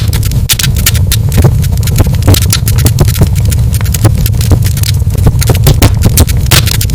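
Fireplace wood fire crackling, with irregular sharp pops several times a second over a steady low rumble.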